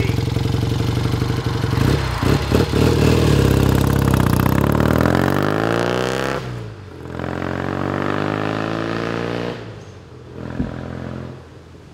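1965 BSA Lightning 650 parallel-twin engine running, with a couple of clunks about two seconds in, then pulling away hard. The pitch rises, drops suddenly at an upshift about six and a half seconds in, rises again, then fades as the bike rides off.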